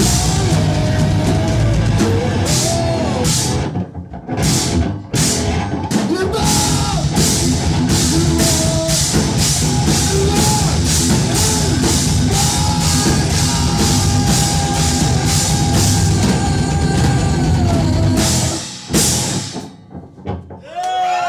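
Loud heavy rock music with a pounding drum kit. It stops short twice about four to five seconds in, then plays on and breaks off near the end.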